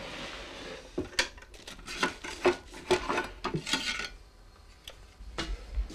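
Kitchen handling sounds: a pot and utensils scraping and knocking, with a hiss in the first second and then a quick run of sharp clicks and clinks.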